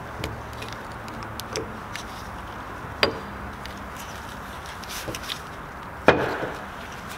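Small metallic clicks and taps from a 1.9 TDI piston and connecting rod being handled by gloved hands while the piston pin circlip is worked out. There are two louder knocks, one about three seconds in and one near the end, the second ringing briefly.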